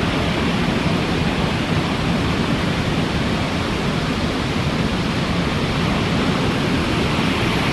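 Loud, steady roar of the Cleddau River's water rushing and falling through a narrow rock chasm.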